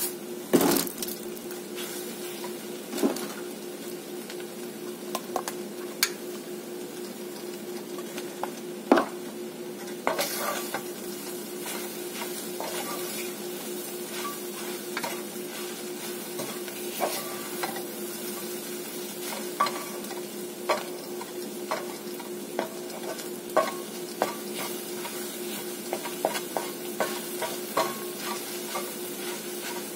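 Scrambled eggs sizzling in a cast-iron skillet while a wooden spoon stirs and scrapes them, with frequent light knocks of the spoon against the pan. A steady hum runs underneath.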